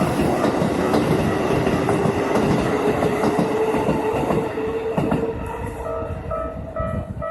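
Keikyu Daishi Line electric train going over the level crossing, wheels clattering over the rail joints with a steady whine, fading from about four seconds in. As it fades, the crossing's warning bell comes through, a repeating two-tone ding a little over twice a second.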